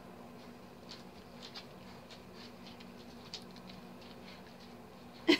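Faint scattered wet clicks and rustles of newborn corgi puppies nuzzling and suckling at their mother's teats as she licks them clean, over a low steady hum. A brief louder sound comes near the end.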